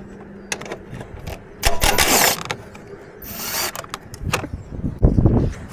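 Mechanic's hand tools clicking and clattering on a car, with two short bursts of rattling, ratchet-like noise about two and three seconds in and a few low knocks near the end.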